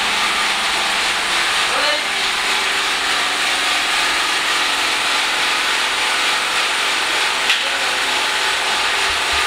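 A steady, even rushing noise with faint voices in the background, and a single sharp click about seven and a half seconds in.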